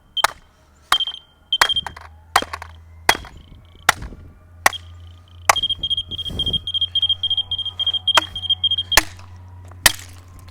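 A battery-powered smoke detector being struck hard again and again, about a dozen sharp hits roughly one a second. Its alarm sounds in short high beeps after some of the hits, then beeps rapidly without a break for about three and a half seconds in the second half before the hits resume.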